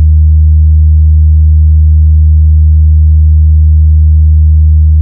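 Very loud, steady deep bass tone: a sustained electronic sine-wave sub-bass note with fainter overtones above it. It is a speaker-check bass test in a DJ sound-testing remix, meant to make the speakers vibrate.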